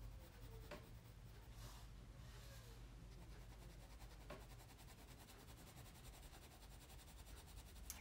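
Faint scratching of a pencil drawing on sketchbook paper over a low room hum, with two faint ticks.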